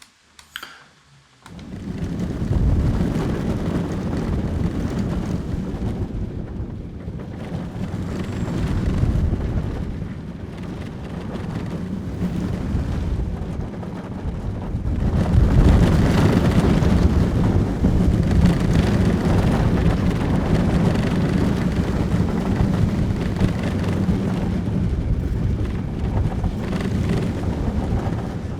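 Onboard recording of an amusement-park ride car running along its track, taken from microphones at the seat's headrest: a continuous low rumble with rattling of the wheels. It starts about a second and a half in and grows louder about halfway through.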